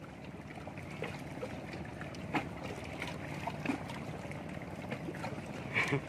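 Shallow sea water lapping and sloshing around rocks and a wader, with a few faint splashes, under a steady wash of wind and water noise.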